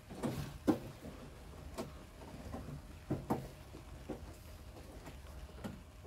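A socket wrench undoing a 10mm nut on a van's front door handle mounting, with a handful of scattered metallic clicks and knocks of the tool against the steel door.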